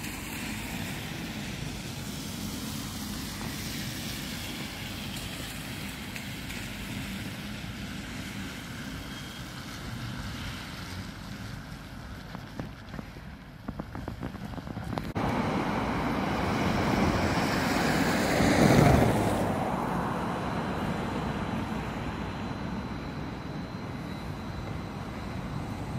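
Wind on the microphone over faint distant traffic. About fifteen seconds in, louder city street traffic takes over, with a vehicle passing close about four seconds later. A low-floor tram is coming up the street near the end.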